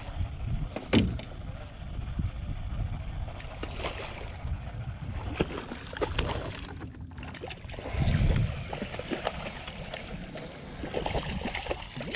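A hooked redfish thrashing and splashing at the surface beside a small boat, over an irregular low rumble. A sharp knock comes about a second in, and there is a louder surge of noise past the middle.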